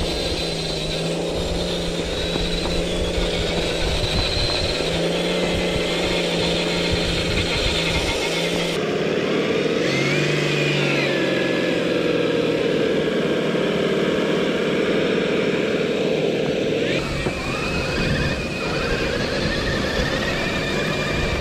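Electric motors and gear drivetrains of RC rock crawlers whining as they drive, the pitch rising and falling with the throttle.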